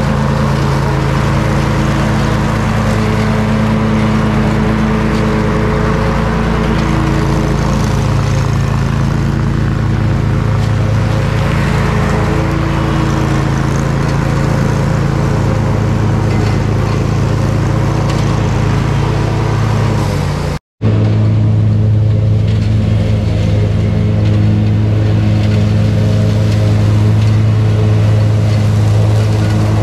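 Bad Boy ZT Elite zero-turn mower's engine running steadily while mowing grass. The sound breaks off for an instant about two-thirds of the way through, then carries on with a slightly deeper tone.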